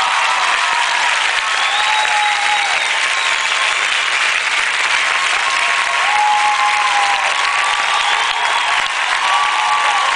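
Large audience applauding steadily, with voices calling and cheering out over the clapping now and then.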